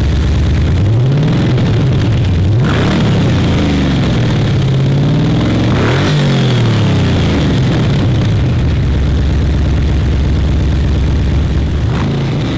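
A 5.7-litre Chevrolet LS6 V8, swapped into a DeLorean DMC-12, running just after a cold start: it is revved twice, rising and falling slowly each time, then settles into a steady idle.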